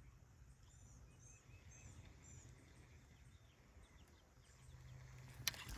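Near silence outdoors, with faint high bird chirps repeating several times in the first half, and a sharp click near the end.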